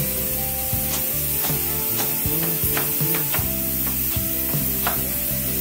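A cleaver chopping carrot on a plastic cutting board: several sharp, unevenly spaced chops. Under them run background music with a steady bass line and a constant hiss of steam from a pressure cooker.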